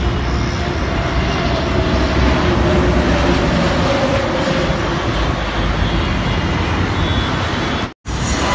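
Jet airliner passing low overhead on final approach: loud, steady engine noise with a whine that slides down in pitch as it goes by, over street traffic. The sound cuts out for a moment near the end.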